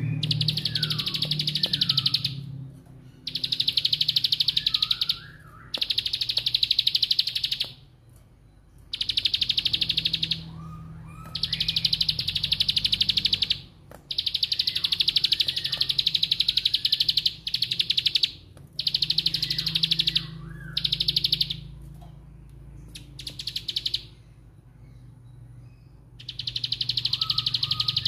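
Caged plain prinia (ciblek sawah) giving its 'bren' song: about ten very fast buzzing, clicking rattles, each one to three seconds long, with short falling whistled notes between them.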